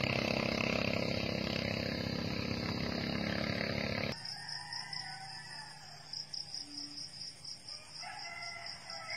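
A steady droning sound that cuts off suddenly about four seconds in. After it, a rooster crows twice, faint and far off, over a steady high pulsing trill.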